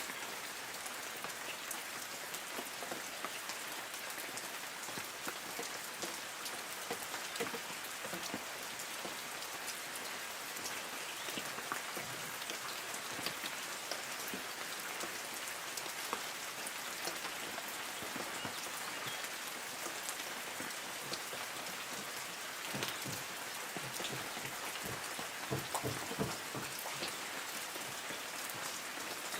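Light rain falling on forest trees: a steady patter of drops on leaves, with scattered heavier drips, a few clustered about three-quarters of the way through.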